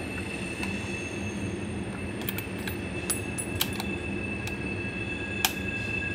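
A train passing in the distance: a steady rumble with a thin, steady high-pitched wheel squeal over it, and a few faint clicks.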